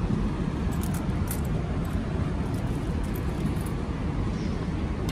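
Steady low outdoor background rumble in an urban car park, with a few faint clicks.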